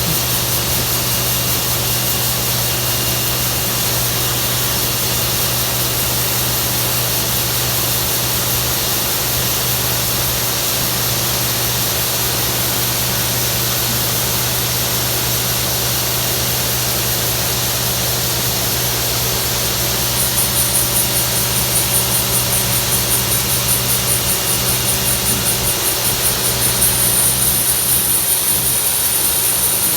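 John Deere S780 track combine running steadily while harvesting soybeans, with a constant low hum. About two-thirds of the way in, a fast, even high-pitched pulsing joins the machine noise.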